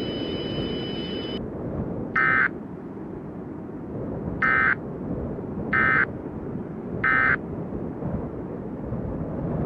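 Emergency Alert System end-of-message tones: four short electronic data bursts, the last three about a second apart. A steady low rumble runs under them, and two high steady tones stop about a second in.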